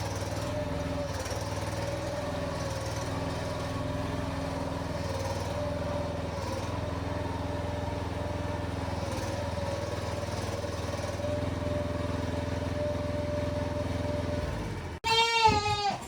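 A motor running steadily, with a low hum and a slightly wavering whine above it, stopping shortly before the end. Then a goat bleats once.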